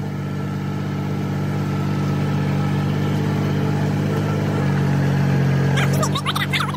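Compact loader tractor's engine running steadily under way, heard from the driver's seat, its note dipping slightly about four and a half seconds in. A few brief sharp high sounds come through near the end.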